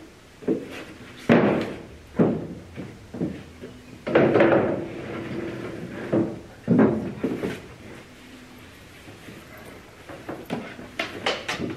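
A string of thuds and knocks, with a longer heavy thud about four seconds in and a quick run of sharp clicks near the end. This is a timber batten and a large plastic water tank being shifted and bumped against a wooden boat's framing.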